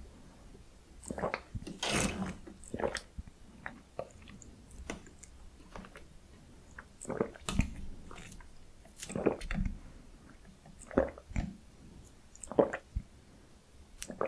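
Close-miked chewing and crunching of salty potato stick snacks, in irregular crisp crackles and bites with short pauses between them.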